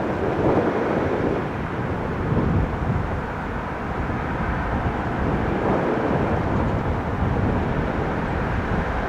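Deep, steady rumble of a Boeing 747-400F freighter's jet engines after landing, a low noisy roar with no clear whine.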